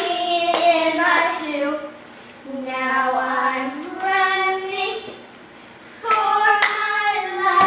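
Children singing a hand-clapping game chant in drawn-out sung phrases with short pauses between them, and a few sharp hand slaps near the start and again near the end.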